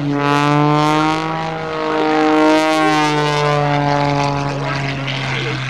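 Pitts S-2S aerobatic biplane's piston engine and propeller running at high power during an aerobatic pass, the pitch sagging and rising slightly as it maneuvers.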